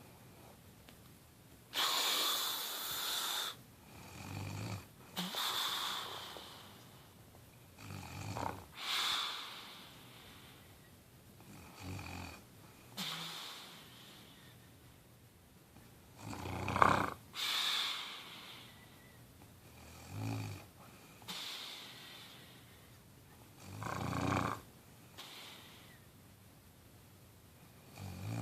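Slow, regular snoring, about one breath every four seconds, each breath mixing a low snore with a breathy hiss; one breath about 17 seconds in is louder than the rest.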